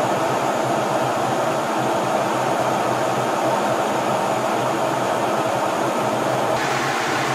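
Steady rush of air and engine noise inside a military jet's cockpit in flight, with a faint low hum under it; the higher hiss thins out about six and a half seconds in.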